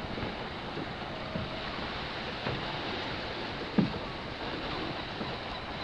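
Steady rush of a boat under way on the sea, water against the hull mixed with wind, with one short thump about four seconds in.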